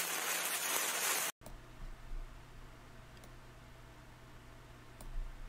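Television static hiss for about a second and a half, cutting off suddenly. Then faint room tone with a steady low hum and a few faint clicks.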